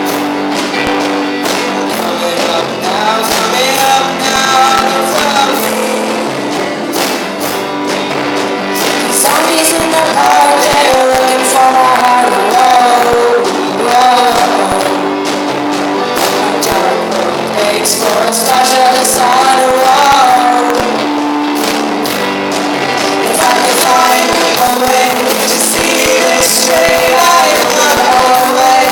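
Live rock band playing, with a singer's voice over guitar and drum hits.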